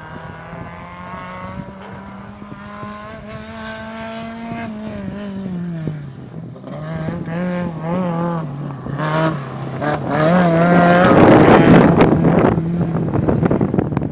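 Volkswagen rally car engine at speed on a gravel stage. It holds a steady note, drops as the driver lifts off about five seconds in, then rises and falls in quick short pulses through the corner. The car passes close, loudest near the end, with a rush of noise from its tyres on the gravel.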